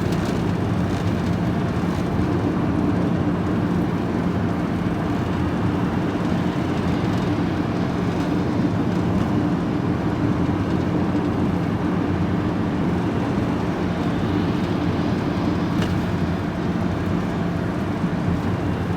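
Steady engine drone and road noise heard from inside the cab of a vehicle driving along, with a constant low hum.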